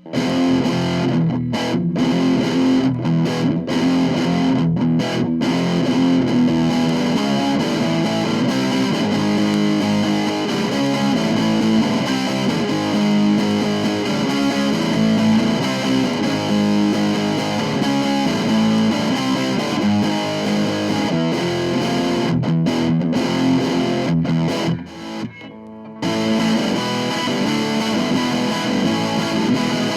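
1970s Univox Hi-Flier Phase 3 electric guitar played with a distorted tone in a continuous run of chords and riffs, with a short break about 25 seconds in.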